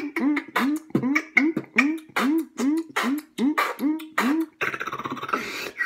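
Vocal beatboxing: an even, rapid run of short pitched mouth pops, about four a second, then a raspy buzz for the last second or so.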